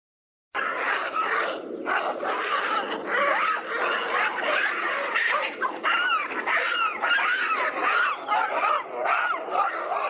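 A group of drills calling: many short calls overlapping, rising and falling in pitch, starting suddenly about half a second in.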